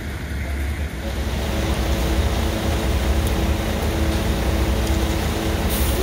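Concrete boom pump truck running while pumping concrete through its hose: a steady, loud mechanical drone that gets louder about a second in.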